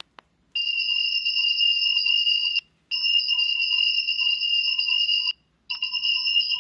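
Cricket trilling: steady, high-pitched bursts of about two seconds each, three in a row with short pauses between.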